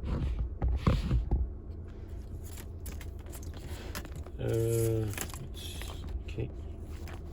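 Handling noises as small parts and tools are picked up and moved: a few bumps at first, then scattered light clicks and scrapes, over a low steady rumble.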